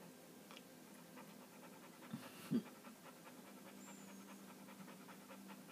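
Pit bull panting steadily with its mouth open, the panting of a dog frightened by a thunderstorm. A brief, sharp, louder sound cuts in about two and a half seconds in.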